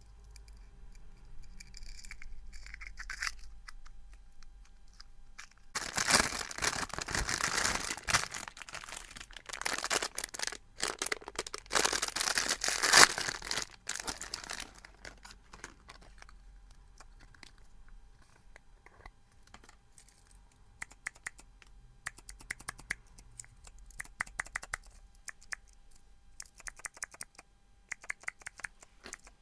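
A long stretch of loud crinkling and rustling in the middle, then clicker fidget toys clicking in quick runs of small sharp clicks toward the end.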